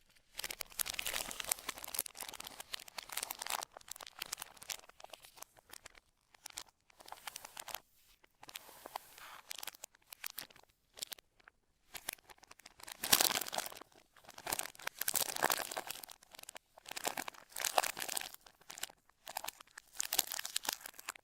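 Packaging being handled: irregular crinkling and tearing rustles with sharp crackles, coming in bursts with short pauses between them.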